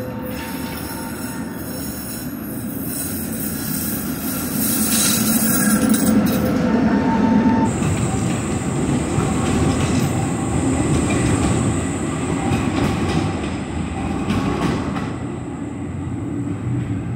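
Trams running on street track, with rumbling wheels and squealing on the rails. From about halfway a Škoda 15T tram passes close and runs off on curving track. A steady high-pitched whine comes in as it passes.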